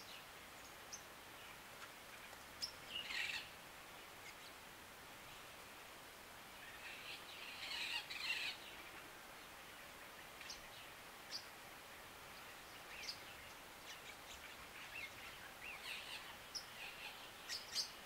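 Lilian's lovebirds giving short, high chirps and twitters in scattered bouts, busiest about three seconds in, around eight seconds in and near the end, over a faint steady hiss.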